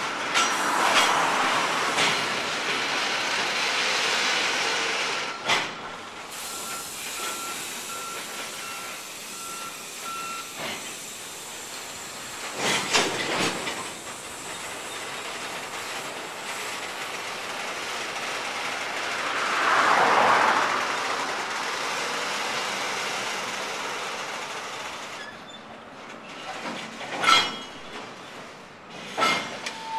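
Container wagons rolling slowly during shunting: steady wheel and rail noise, with a few sharp clanks and knocks, and a swell in the running noise about two-thirds of the way through. A repeating high beep sounds through roughly the first ten seconds.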